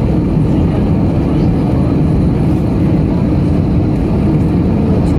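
Steady cabin noise inside an Embraer E195 airliner on approach: its wing-mounted General Electric CF34-10E turbofans and the air rushing past the fuselage make a deep, even drone.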